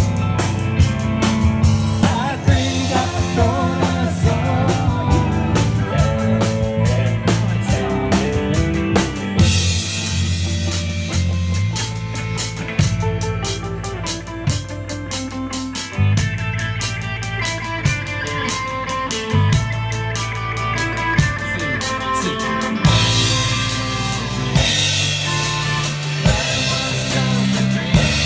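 A five-piece band playing live, with a drum kit keeping a busy beat over held low bass notes and other instruments.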